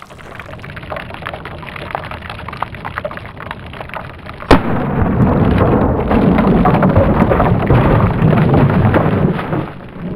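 A single shot from a Taurus 605 Poly Protector revolver, heard slowed down. A sharp crack about four and a half seconds in is followed by a long, low rumbling boom lasting about five seconds. A low hiss with faint ticks builds up before the shot.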